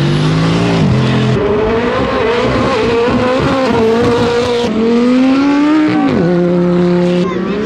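Supercar engines accelerating hard past the listener, their pitch climbing through the revs and dropping sharply at gear changes, about a second in and again around six seconds in. The sound switches abruptly between different cars as the clips change.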